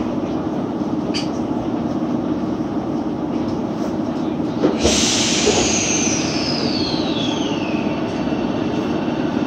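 Tokyo Metro 07 series subway car standing with a steady hum in the cabin. About halfway through comes a sudden thump and a loud hiss of compressed air that fades over a few seconds, with whistling tones falling in pitch, as the train readies to depart.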